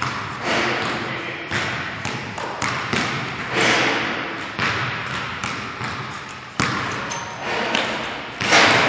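A basketball being dribbled on a hard gym floor, a steady run of bounces about one or two a second, each echoing in the large hall.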